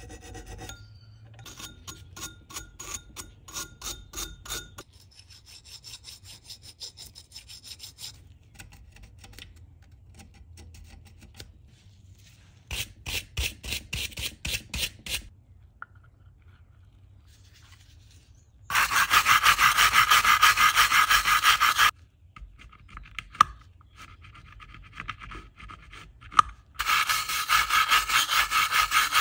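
Metal parts of an old hand drill being scraped and rubbed by hand, in bursts of rhythmic back-and-forth strokes. About two-thirds of the way in, and again near the end, come louder, denser stretches of scrubbing.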